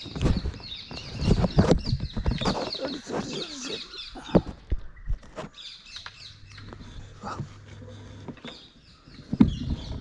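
Birds chirping over a run of rustles and sharp knocks in dry leaf litter, busiest in the first few seconds.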